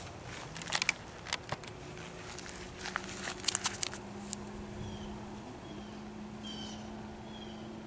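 Light rustling and clicking of plastic wrap and a paper instruction booklet being handled and lifted out of a cardboard box, scattered over the first four seconds. After that only a low steady hum and a few faint, short high chirps remain.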